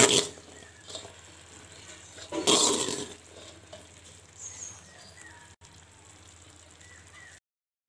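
Jaggery syrup with grated coconut sizzling in a pan while cooked green gram is stirred in with a wooden spoon, with a louder burst of sizzling and stirring about two and a half seconds in. The sound cuts to silence near the end.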